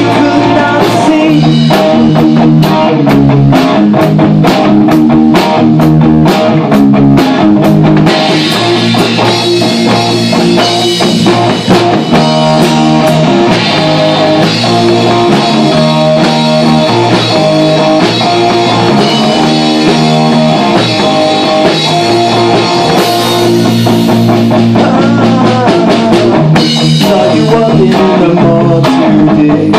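Live rock band playing loud with electric guitar, bass guitar and drum kit, the drums keeping a steady beat under the guitars.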